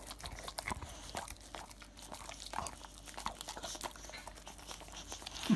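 Boxer dog eating bits of boiled chicken breast from a hand: irregular wet smacks, clicks and chewing from its mouth.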